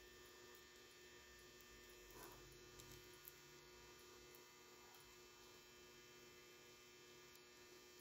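Near silence with a faint, steady electrical hum made of many constant tones, and a brief soft rustle of wire handling about two seconds in.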